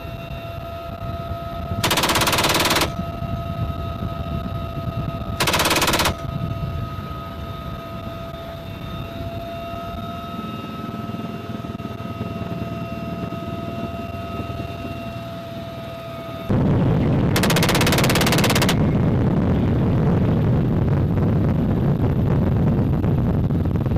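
Helicopter door-mounted machine gun firing two short bursts, about a second and half a second long, over the UH-1Y Venom's steady cabin whine. About sixteen seconds in a loud rushing noise sets in, and a third burst of about a second and a half follows.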